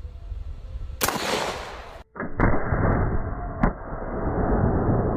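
A single heavy four-bore rifle shot firing a subsonic round, with a decaying boom. About two seconds in it gives way to a muffled low rumble with a few sharp knocks.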